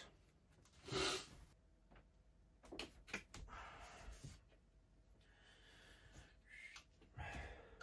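A short breathy puff, then a few faint clicks and soft rustles of hands working in an open engine compartment.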